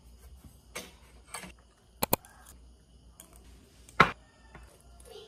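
A few light clicks and taps of dishes and utensils on a table, including a quick double click, then one louder knock about four seconds in as a dish is set down on the table.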